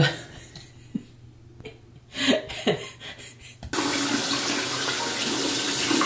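Bathroom sink faucet turned on about two-thirds of the way in, water running steadily into the basin while a face mask is washed off.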